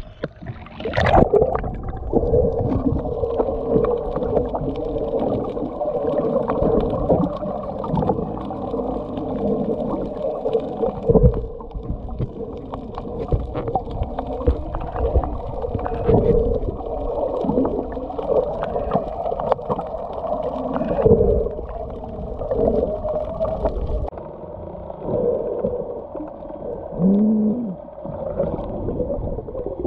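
Muffled underwater sound picked up by a camera in a waterproof housing: water moving and gurgling against the housing, over a steady low hum.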